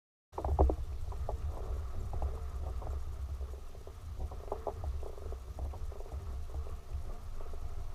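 Steady low rumble with scattered light taps and knocks, the sound of a fishing boat sitting on the water. It starts abruptly just after the opening.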